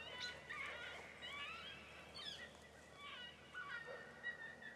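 Faint coyote yips and wavering howls, several voices calling over one another in short sliding cries.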